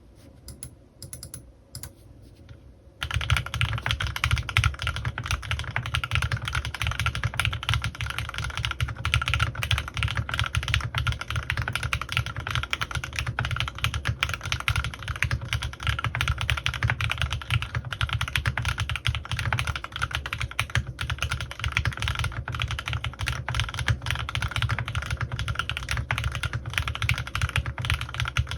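Custom CannonKeys Rekt1800 mechanical keyboard with lubed Gateron Milky Yellow linear switches and PBT keycaps being typed on. It starts with a few soft key presses, then fast, continuous typing from about three seconds in.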